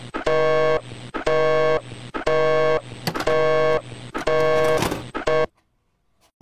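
Telephone busy signal: a two-note tone pulsing about once a second, six times, meaning the other end of the line has hung up. It cuts off about five and a half seconds in.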